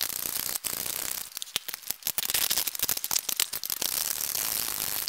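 Hydraulic bottle jack on a shop press being pumped by its long handle bar, with quick metallic clicking and rattling, as the press bears down to break a garden tractor tire's bead.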